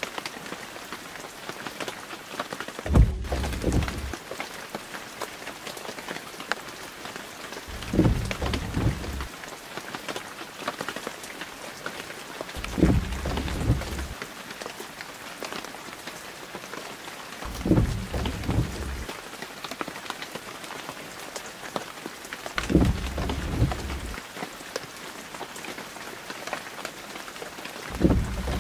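Rain falling steadily, with a short low rumble that comes and goes about every five seconds.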